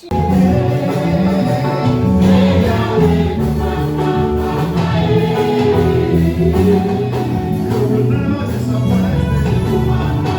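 Gospel choir singing a worship song with instrumental backing. It starts and cuts off abruptly.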